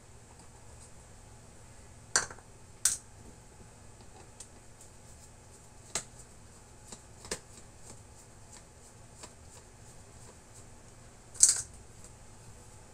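Scattered sharp clicks and taps as a small plastic electronics case, a long-range locator's control box, is handled and worked at with a screwdriver. There are about five clicks, the loudest near the end.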